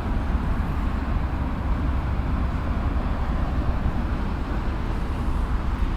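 Steady low rumble of distant vehicle noise, even throughout with no single event standing out.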